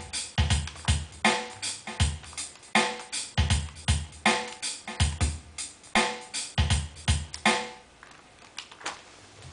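Drum machine beat with kick, snare and fast hi-hats playing on its own at the end of a bass jingle, stopping abruptly about eight seconds in.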